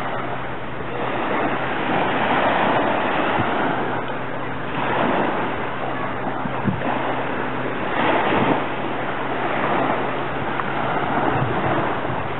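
Small waves breaking and washing up a sandy, pebbly shore, the surf swelling and easing several times.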